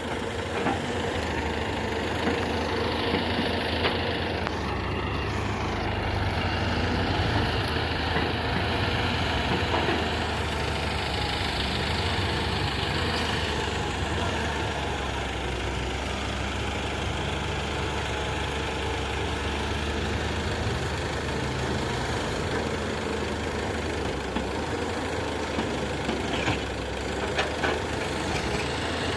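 Heavy diesel engine running steadily, with a few brief knocks near the end.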